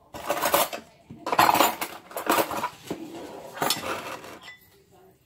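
Metal utensil clinking and scraping against a ceramic bowl in four or five short, irregular bursts, working a liquid cake mixture.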